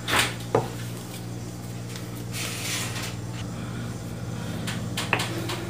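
A metal spoon pressing into and knocking against a lump of hot dough on a granite counter, with a sharp click about half a second in; after that only a steady low hum, with a few small clicks near the end.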